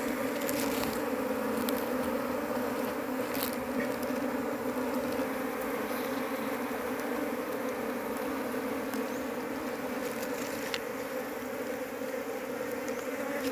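A wild colony of Asian honeybees (Apis cerana), dug open in the ground and disturbed, buzzing in a steady, dense hum. A few brief clicks sound over it.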